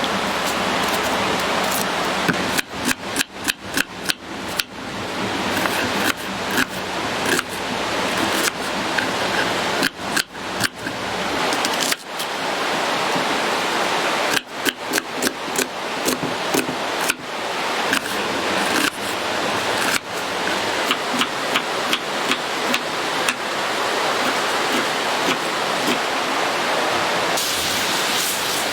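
Food frying in a pan over a campfire: a loud, steady sizzling hiss with many sharp pops and crackles, in irregular clusters.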